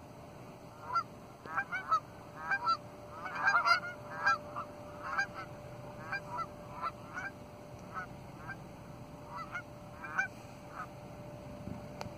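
A flock of Canada geese honking: many short calls, often overlapping, that come thickest about three seconds in and then grow sparser.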